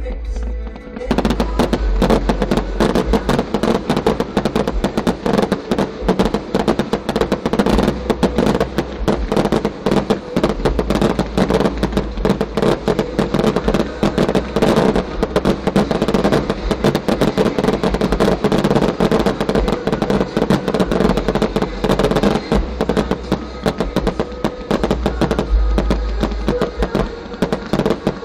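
Fireworks display: from about a second in, a dense, continuous barrage of rapid bangs and crackling from shells bursting overhead.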